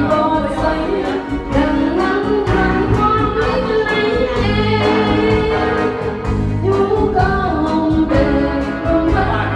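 A woman singing a melody into a microphone, amplified over a karaoke backing track with a steady beat.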